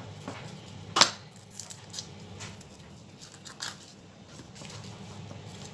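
Kitchen knife working shallots on a cutting board: one sharp knock about a second in, then a few light scattered cuts, over a low steady hum.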